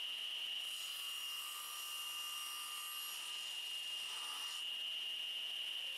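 Table saw running with a steady high whine while the sled carries a small workpiece through the blade; the cut adds a hiss from about one second in to about four and a half seconds.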